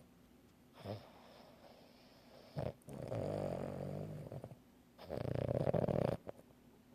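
A sleeping pet snoring: two long snores, one about three seconds in and a louder one about five seconds in, with shorter breath sounds before them.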